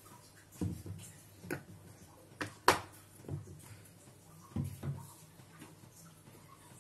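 A few scattered short clicks and soft knocks, the sharpest one about two and a half seconds in, over a faint low hum.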